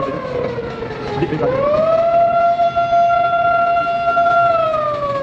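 A siren wailing over the low rumble of a train. Its one steady tone is already sinking at the start, bottoms out about a second in, climbs back up and holds, then starts to sink again near the end.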